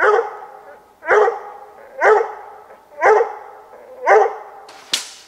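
Bluetick coonhound barking up a tree at a treed squirrel: five loud barks about a second apart. A single sharp crack near the end.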